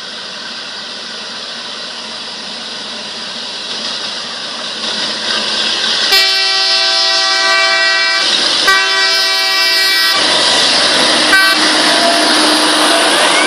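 Rail-mounted brush-cutter maintenance vehicle approaching, its engine noise growing louder, then sounding a long horn blast from about six seconds in, briefly broken near nine seconds, as it draws level and passes close by.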